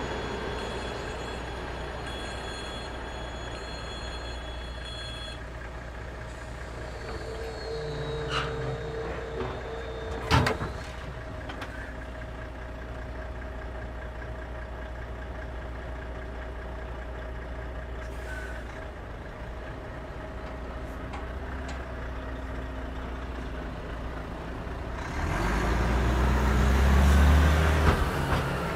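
Level crossing equipment after a train has passed: a steady electronic warning tone that cuts off about five seconds in, then a motor hum and a sharp clank around ten seconds as the road-blocker plates drop flat. Near the end a heavy diesel truck's engine grows loud as it drives over the crossing.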